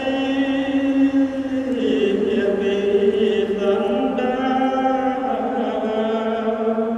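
Buddhist monk chanting into a handheld microphone, in long held tones that shift pitch a few times.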